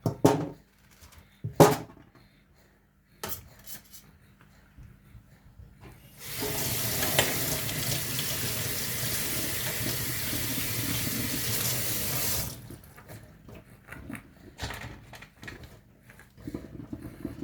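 A few sharp knocks of things being handled, then a water tap running steadily for about six seconds from around six seconds in, stopping abruptly.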